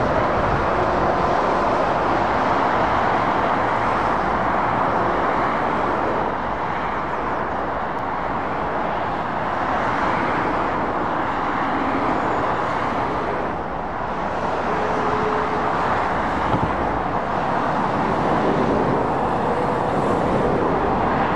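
Steady dual-carriageway traffic noise: lorries and cars passing close by, a continuous rush of tyres on the road mixed with diesel engine sound.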